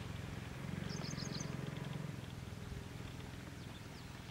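Low steady hum of a distant motor, with a quick run of four or five high bird chirps about a second in.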